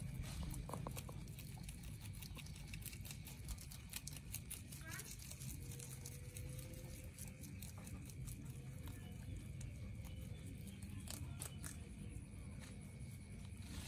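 Domestic rabbits chewing fresh water spinach, a fast scatter of small crisp crunching clicks from several animals at once, over a steady high-pitched tone.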